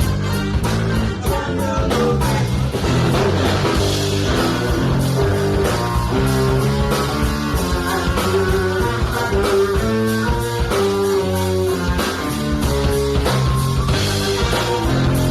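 Funk band playing: a bass line and drums under electric guitars picking a repeating riff.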